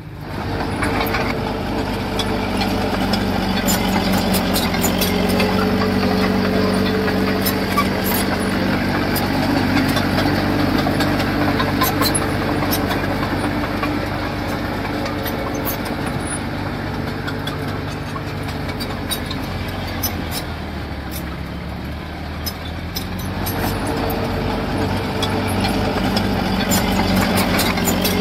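Construction machine's diesel engine running steadily, with scattered sharp metallic clicks over it. It eases off about twenty seconds in and picks up again a few seconds later.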